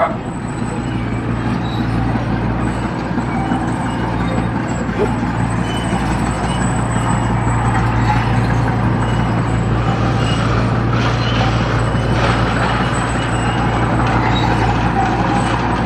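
Heavy earthmoving machine's diesel engine running steadily under work, a continuous low drone that grows a little louder about six seconds in.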